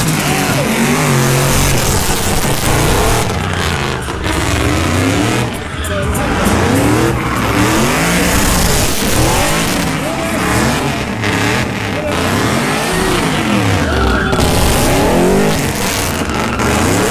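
An old boxy sedan doing donuts: its engine revs up and falls back again and again, with tyres squealing as they spin and smoke.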